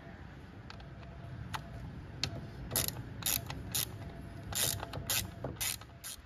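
Hand socket ratchet clicking in a run of short, irregular bursts as it undoes a screw.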